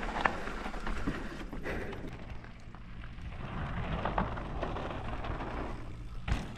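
Mountain bike riding down a dirt trail: tyres rolling over dirt and stones, with wind rumbling on the helmet camera's microphone and a few sharp knocks and rattles from the bike.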